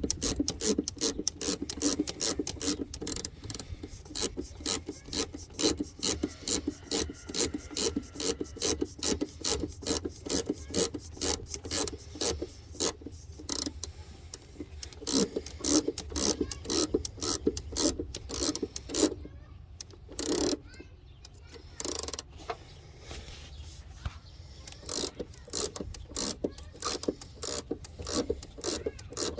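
Hand ratchet wrench clicking rapidly and evenly as it turns a nut, tightening the lock nut on the top stud of a Jeep Cherokee XJ's new front shock down onto its rubber bushing. The clicking pauses briefly about two-thirds of the way through, then resumes.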